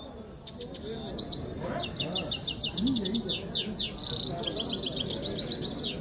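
Caged mule goldfinches (goldfinch–canary hybrids) singing a fast, high twittering song of rapid falling notes and trills, with a couple of short held whistles.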